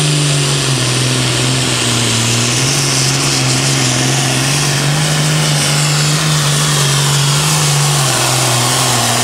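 International Super Farm pulling tractor's turbocharged diesel engine running flat out under load, dragging the sled with a steady, high-revving drone that holds one pitch throughout.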